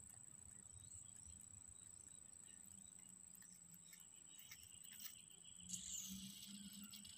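Near silence: faint outdoor background with a few small ticks and a slight rise in noise about six seconds in.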